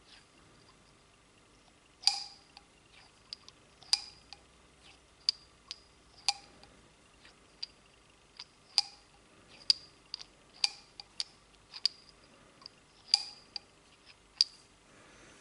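Sharp metallic clicks as a .45 ACP cartridge is pushed by hand into a polished 1911 barrel's chamber and drawn out again. There are about a dozen clicks at irregular intervals of roughly a second, each with a brief ring. The barrel is being test-fitted to check that chambering is smooth after throating and polishing the feed ramp.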